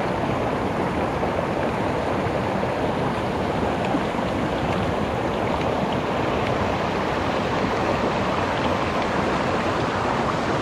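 Mountain headwater stream rushing steadily over rocks and small cascades, an even wash of water.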